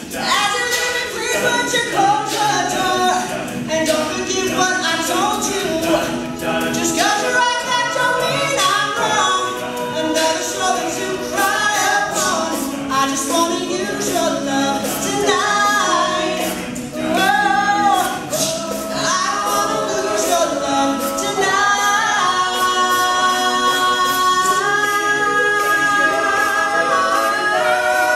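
All-male a cappella group singing, a lead voice over the group's sung backing harmonies with no instruments; near the end the voices hold long steady notes.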